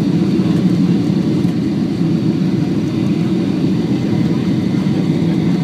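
Steady low rumble of a Boeing 737's jet engines and airflow heard inside the passenger cabin during the landing approach.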